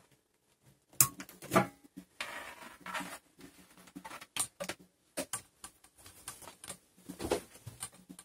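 Scattered light clicks, taps and rustling of an Ethernet patch cable being handled and dragged, with a couple of sharper clicks about a second in.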